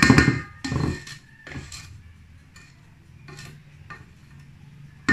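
Spatula scraping batter around a stainless steel mixing bowl and knocking against it, the bowl ringing. Several strokes in the first two seconds, then quieter, with one sharp knock near the end.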